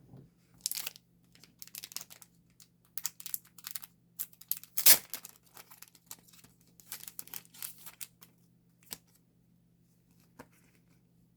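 Thin plastic packaging crinkling and tearing in short irregular bursts as it is handled, with one sharp snap about five seconds in.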